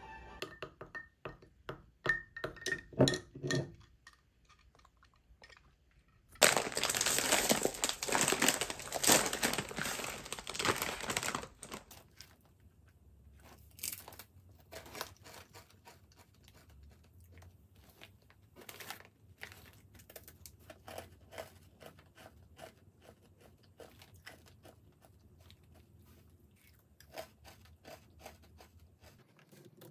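A crinkly chip bag being handled and opened: a few sharp rustles, then about five seconds of loud, continuous crinkling. After that come scattered crisp crunches of the chips being eaten.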